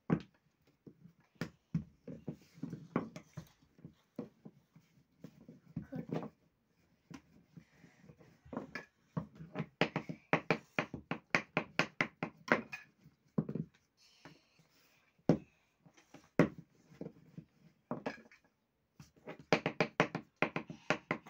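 Roti dough being patted and slapped out by hand on a wooden board, with knocks on the wood: short sharp taps, scattered at first and then in quick runs of several a second around the middle and near the end.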